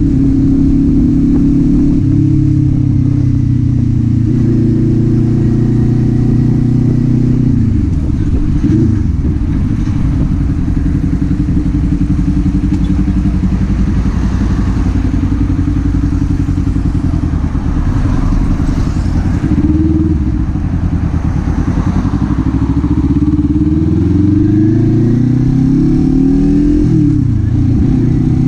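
Kawasaki Z400's parallel-twin engine and exhaust under way, heard from the rider's seat. The revs hold steady for several seconds, then dip and pick up again a few times. Near the end the pitch climbs under acceleration, drops sharply at a gear change, and climbs again.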